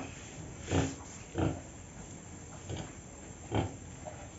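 Domestic pig grunting four times, each grunt short and separate.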